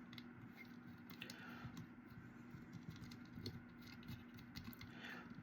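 Faint, scattered small clicks and taps of tiny screws and plastic case parts being handled while fitting a Raspberry Pi 5 into a mini tower case, over a faint steady hum.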